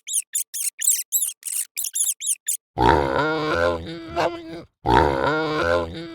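Mice squeaking in quick high-pitched chirps, about four or five a second; about two and a half seconds in, they stop and a pig grunts, a call of about two seconds heard twice.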